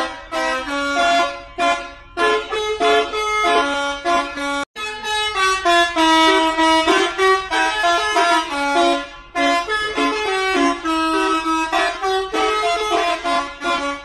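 Bus "telolet" horn, a set of tuned multi-tone air horns, playing a quick melody of short held notes that step up and down in pitch. It breaks off for an instant about four and a half seconds in.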